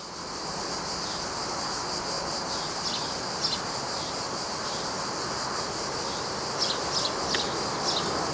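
Cicadas droning in a steady, high, continuous chorus, with a few brief louder chirps about two-thirds of the way through.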